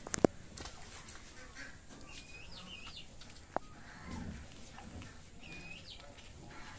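Birds chirping in short curved calls, a group about two seconds in and another about five and a half seconds in. Sharp clicks sound just at the start, the loudest thing heard, and once more about three and a half seconds in.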